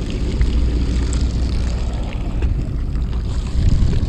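Steady low engine rumble from the fishing boat, with a faint hiss over it.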